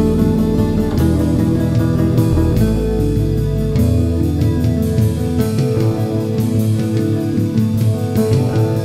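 Instrumental background music with a bass line moving from note to note under sustained pitched notes and a steady beat.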